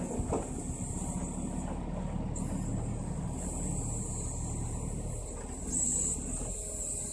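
Diesel engine of a Scania 6x6 timber truck running steadily, driving the hydraulic loading crane as it lifts and swings a log, with a brief louder hiss about six seconds in.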